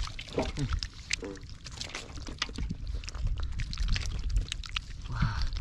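Wet squelching and slapping of mud-covered catfish being handled by hand and put into a basin, a run of short sharp wet smacks and clicks.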